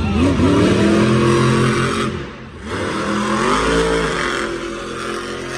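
Monster truck's supercharged V8 engine revving twice. Each time the pitch climbs and holds, with a brief drop in between about two seconds in.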